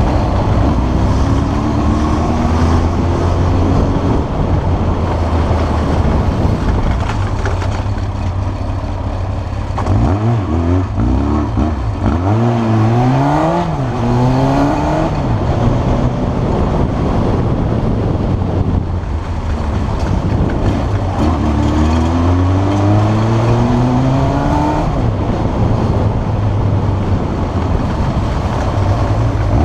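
Yamaha XJ600 S motorcycle's inline-four engine running loudly, its revs climbing several times and dropping back in between.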